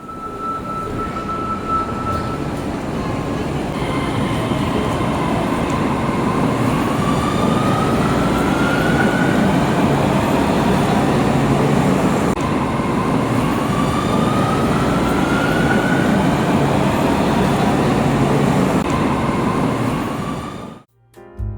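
Train running with a steady rumble, and an electric motor whine that rises in pitch twice as it speeds up.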